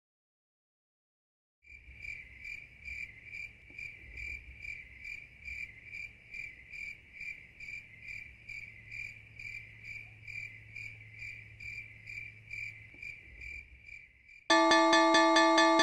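Crickets chirping in a steady, regular pulse, starting about two seconds in. Near the end a much louder metallic bell cuts in, ringing rapidly over and over: a railway level-crossing bell.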